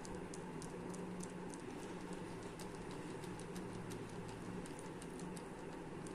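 Faint, irregular small clicks and ticks, a few a second, as a thin pointed tool pokes a hole through a small clay flower lying on a plastic sheet, over a steady low hum.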